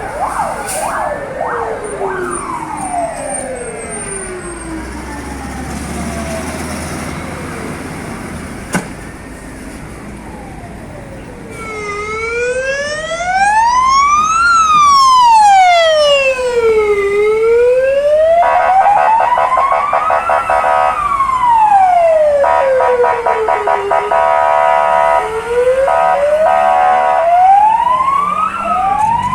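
Russian fire truck sirens. First, several siren tones slide down in pitch and fade. Then, about twelve seconds in, a loud, slow wail rises and falls, with a blaring air horn sounding twice over it. Quicker yelp sweeps come near the end.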